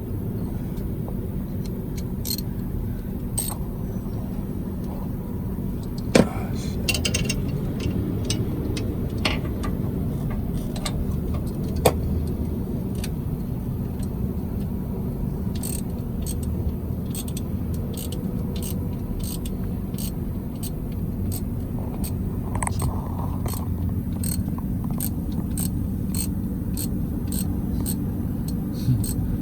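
Hand wrench clicking on the starter wiring bolts under a semi truck, with two sharper metal clicks early on and then an even run of small clicks, about two a second, from about halfway. A steady low vehicle rumble runs underneath.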